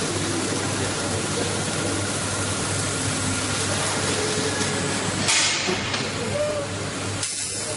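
Sheet-metal laser cutting machine running: a steady hiss over a low hum, with a louder burst of hiss about five seconds in.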